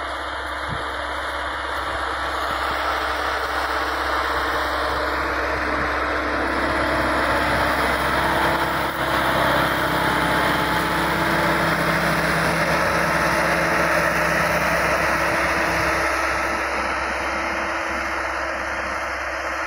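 Massey Ferguson 385 tractor's four-cylinder diesel engine running steadily under load while pulling a disc harrow through dry soil. It grows louder as the tractor passes close by midway, then fades near the end.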